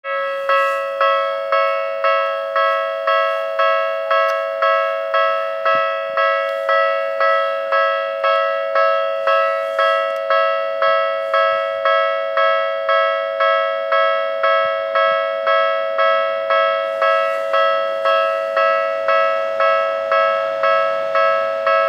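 Railway level-crossing warning bell ringing steadily, a two-tone ding repeated about twice a second, each strike dying away before the next. Near the end the low rumble of an approaching train comes in under the bell.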